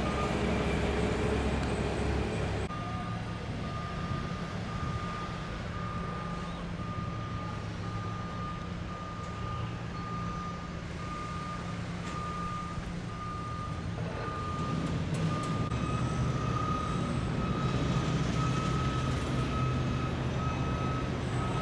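A vehicle's reversing alarm beeping steadily, a little more than once a second, over a low engine rumble, typical of a truck or piece of construction equipment backing up.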